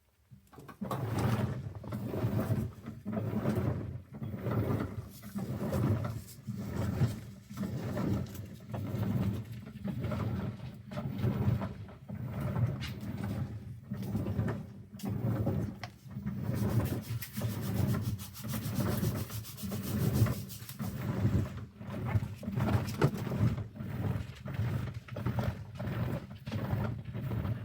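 A soaked sponge being squeezed and rubbed by hand over and over, giving a crunchy, wet rubbing sound in a steady rhythm of about one to two strokes a second.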